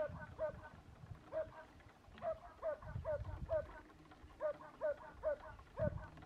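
A dog barking in runs of short, high yaps, about two to three a second, with low rustling underneath.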